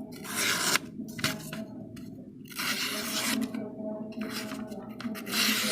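Metal being filed or scraped in several long rasping strokes with short pauses between, over a faint steady hum.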